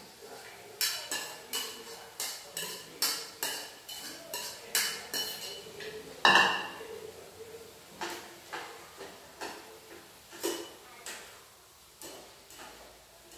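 Kitchen utensils clinking against cookware: a spoon knocking on a bowl and chopsticks on a metal pot. Sharp clinks come about two a second at first, with one louder clank about six seconds in, then scattered taps.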